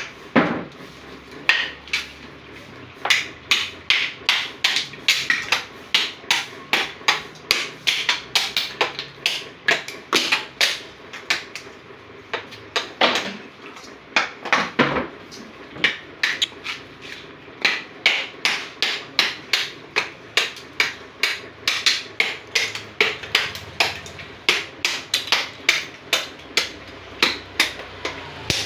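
Small Jakarta-made hatchet (kampak) striking the hard shell of a mature coconut again and again to knock it off the meat: sharp cracking knocks, two or three a second, with a few short pauses.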